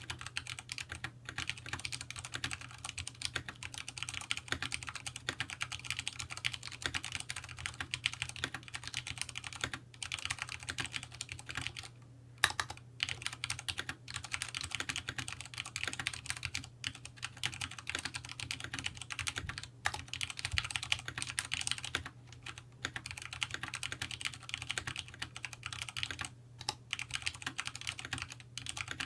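Fast, continuous typing on a Vortex POK3R 60% mechanical keyboard with Cherry MX Brown switches: many rapid keystroke clicks with a few short pauses, and one louder key strike a little before halfway. A faint steady low hum lies underneath.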